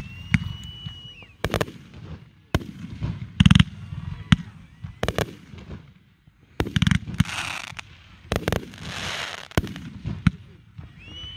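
Fireworks display with aerial shells bursting: about a dozen sharp booms at irregular spacing, with a short lull around six seconds in. A high whistle sounds just after the start, and two spells of hiss fall in the second half.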